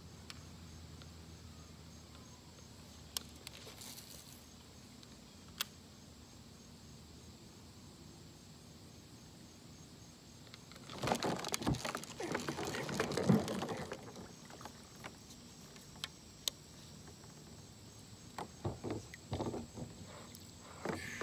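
Handling noise on a fishing kayak: a few sharp clicks over a quiet background, a louder spell of knocking and rustling about eleven to fourteen seconds in, and more scattered knocks near the end as the paddle and rod are taken up.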